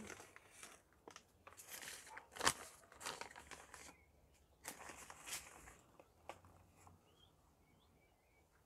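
Paper bag crinkling and rustling as it is handled, a run of dry crackles with one sharper crackle about two and a half seconds in, dying away about six seconds in.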